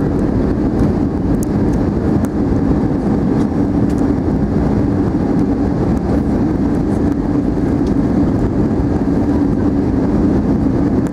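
Airbus A319 cabin noise on approach: the steady drone of the jet engines and airflow heard from a window seat over the wing, with a low hum that holds steady throughout.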